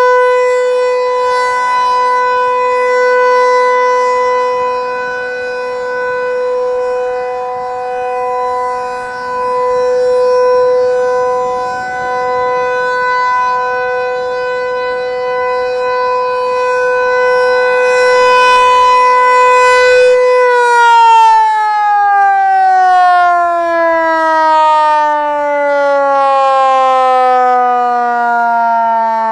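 Federal Signal 508-128 rotating outdoor warning siren sounding its full-alert steady tone, with a weaker lower undertone, rising and falling in loudness as the head turns. About twenty seconds in it is switched off and winds down, its pitch falling steadily.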